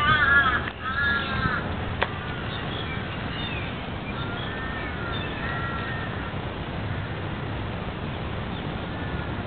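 Crows cawing: a few harsh, arched calls in the first second and a half, then fainter ones further off a few seconds later. Steady low background noise underneath, and a single sharp click about two seconds in.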